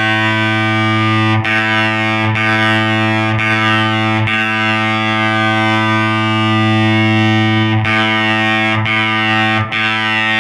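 Electric guitar through a Way Huge Swollen Pickle MkIIs fuzz pedal and a solid-state Fender Champion 20 amp: one low note picked over and over, each held with long fuzzy sustain. The clip trim pot is swept from full left to full right, and the tone goes from a little brighter to a little darker.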